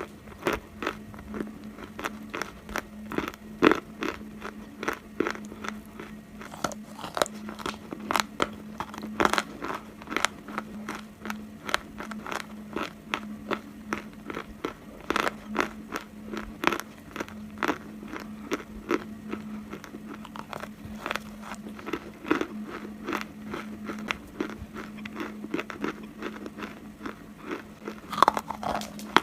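Chunks of dry Turkestan clay being bitten and crunched between the teeth, many sharp crunches following one another in uneven succession.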